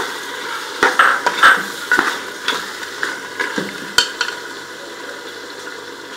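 A spatula stirring a sizzling mix of mutton, onions, tomatoes and yogurt in a steel pressure-cooker pot. Scrapes and taps against the pot come through the first four seconds or so, then only the steady sizzle remains.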